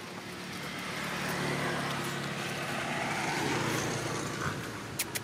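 A motor vehicle passing by: its engine hum and road noise swell over about three seconds and then fade away. Two sharp clicks come near the end.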